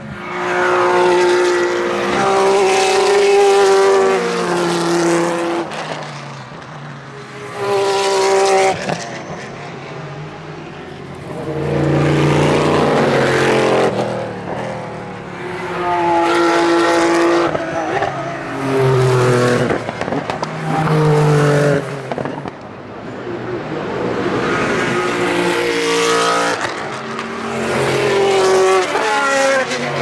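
Sports racing cars passing one after another at racing speed, in about seven loud passes with quieter gaps between. The engine note steps up and down in pitch as the drivers shift gears.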